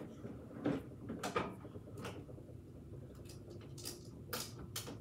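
Rummaging among small skincare and makeup items: a string of light knocks and clicks with some rustling, as plastic containers are moved about in search of a lip mask applicator.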